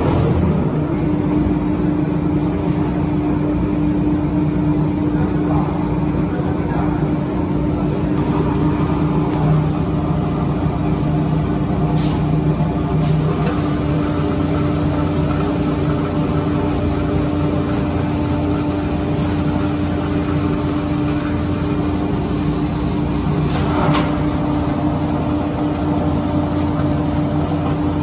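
Pillow fiber opening and filling machine running steadily with a constant hum. A few short, sharp bursts break in, twice around the middle and once near the end.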